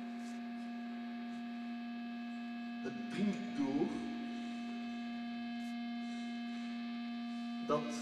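A steady electric hum made of several held tones. About three seconds in, a brief wavering sound breaks in, and a sharp click comes near the end.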